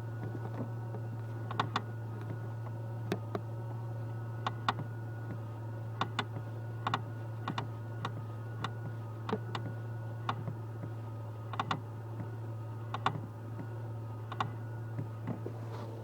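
Clutch pedal mechanism of a Great Wall Safe F1 giving short, sharp creaking clicks as the pedal is pressed and released over and over, often in close pairs, over a steady low hum. This is the squeak and grinding that comes with pressing the clutch.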